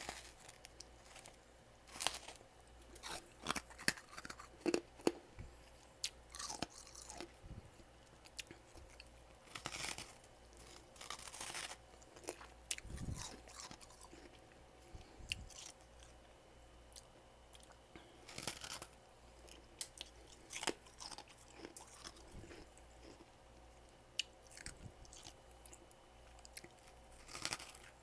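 Close-up crunching and chewing of mouthfuls of freezer frost: irregular crisp crunches, some in quick clusters, with short pauses between bites.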